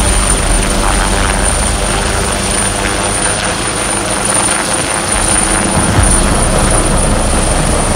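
Agusta AW139 twin-turboshaft helicopter flying overhead, its five-bladed main rotor and turbines making a steady, loud noise.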